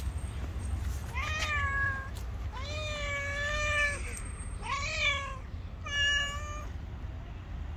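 A domestic cat meowing four times, the second meow drawn out to about a second and a half, the others shorter.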